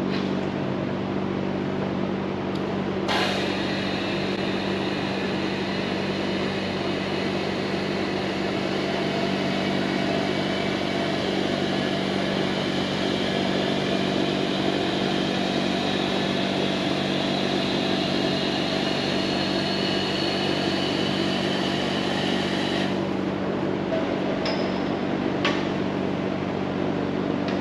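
Upright SL20 snorkel lift's electric hydraulic drive running with a steady hum, a higher whine joining it about three seconds in and cutting off sharply a few seconds before the end, as the platform is moved.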